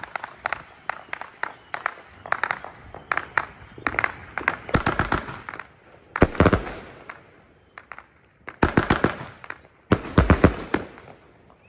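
A 200-gram, 16-shot consumer firework cake firing: scattered sharp pops at first, then clusters of rapid crackling bangs about five, six, nine and ten seconds in.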